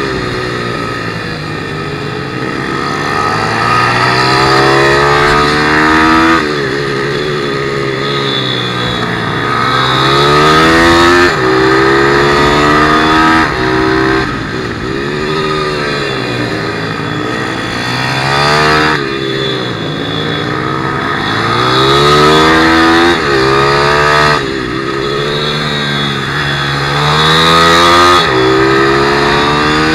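160cc pit bike's single-cylinder four-stroke engine heard onboard at race pace, revving up hard with a sudden drop in pitch at each upshift, and falling in pitch under braking into the corners, over and over through the lap.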